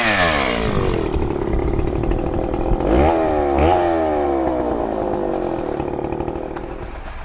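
An engine revved up and dropping back, blipped twice in quick succession about three seconds in, then running steadily and slowly fading.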